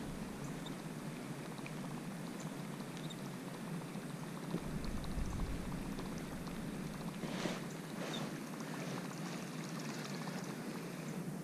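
Soft water lapping and gurgling against a plastic kayak hull, with small ticks and a couple of brief splashy sounds about seven and a half and eight seconds in.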